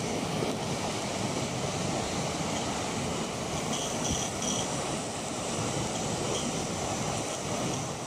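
Steady rush of a river flowing over rocks, with a few faint high chirps about four seconds in.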